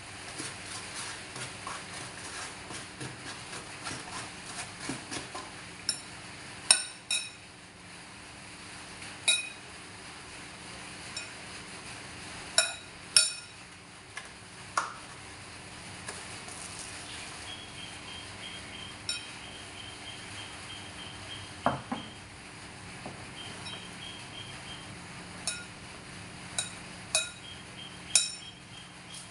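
Metal spoon clinking and scraping against a ceramic bowl and a foam takeout box while food is scooped out and eaten: many small ticks and scrapes at first, then a dozen or so sharp, ringing clinks spread through.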